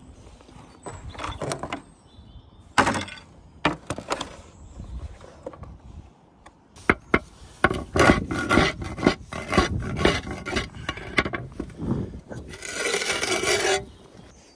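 Concrete interlocking roof tiles being knocked with a claw hammer and scraped against each other as they are worked loose. There is a busy run of clacks and scrapes in the middle, and a longer scrape near the end as a tile is slid up and lifted out of its course.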